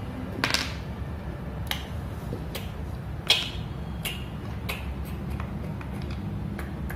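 Go stones clicking on a wooden Go board and against each other as they are picked up and set down: a series of sharp, irregularly spaced clicks, about one a second.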